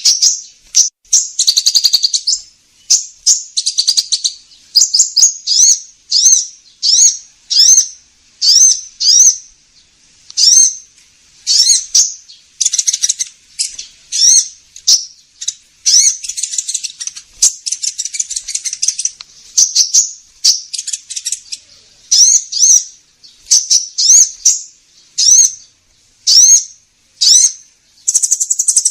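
Recorded lure call of the kolibri ninja, a sunbird: high, sharp chirps repeated about once or twice a second, some sweeping upward, broken by a few fast twittering runs.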